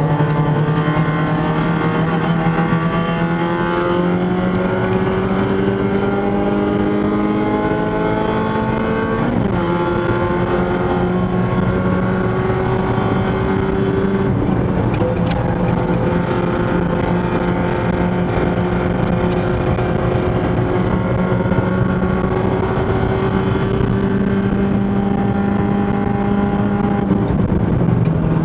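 Mazda Spec Miata race car's four-cylinder engine heard from inside the cockpit, pulling hard under full throttle with its pitch climbing slowly. The pitch drops sharply about nine seconds in and again near the end as the driver shifts up.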